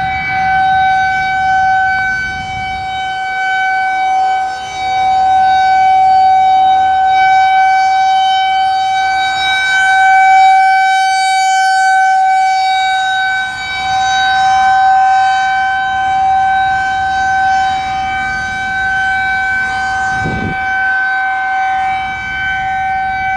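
Federal Signal 2001 outdoor tornado warning siren sounding a steady, loud alert tone in a weekly test. It holds one unwavering pitch, and its loudness swells and dips a little as the rotating head turns.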